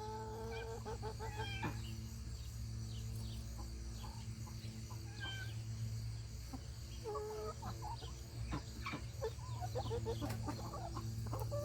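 Backyard chickens clucking with many short scattered calls as they feed on tomato skins.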